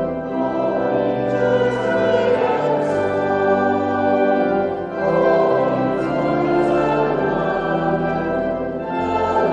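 Music: a choir singing sustained chords with orchestral accompaniment.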